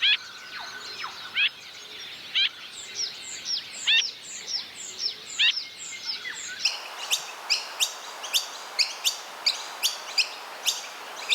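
Small birds calling: repeated short down-sweeping notes, then, after a change of recording about six and a half seconds in, a quick series of sharp high chirps, about two a second.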